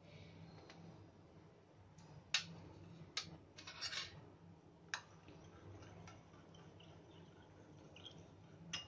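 A handful of light, sharp clicks and taps of a small spoon and a plastic food-colour pot against glass bowls and the stone counter as colour is added to sugar syrup and stirred. The loudest click comes about two seconds in.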